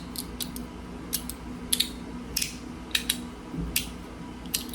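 Handheld fidget slider being slid back and forth, its slider clicking sharply against the stops, a single click or a quick pair of clicks about every half second.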